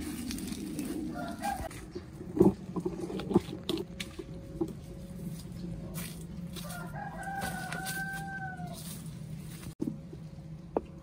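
A rooster crowing: one long call of about two seconds in the second half, rising and then falling a little, with a shorter call about a second in. A few sharp knocks about two and three seconds in.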